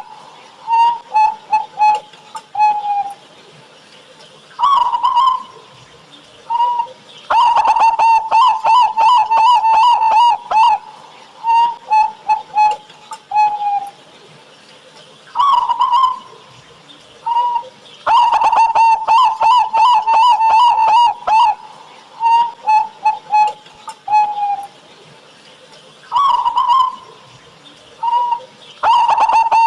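Zebra dove (perkutut) cooing: runs of quick staccato coos around a single pitch, broken by longer rolling trilled phrases. The pattern recurs about every eleven seconds.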